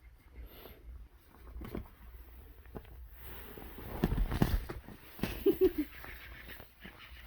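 Puppy moving about at close range: scattered soft taps and knocks, a cluster of louder thumps about four seconds in, and a short squeaky sound of three quick pulses a little later.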